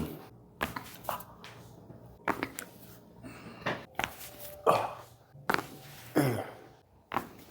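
Neck joints cracking during chiropractic adjustments: a string of sharp pops and clicks spread through, with a couple of short, falling vocal sounds from the patient.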